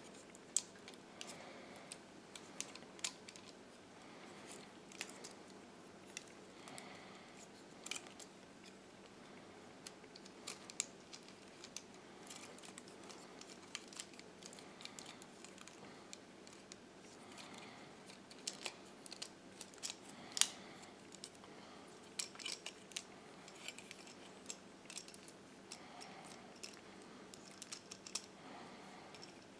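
Plastic Transformers figure being transformed by hand: irregular small clicks and snaps of its plastic joints and panels as wings and limbs are folded, the sharpest snap about two-thirds of the way through, over a faint steady room hum.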